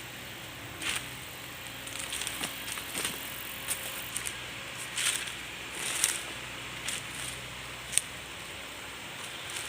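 Heavy earthmoving machine working on a mine road cut: a faint steady engine hum under irregular cracks and clicks of soil and stones breaking and shifting.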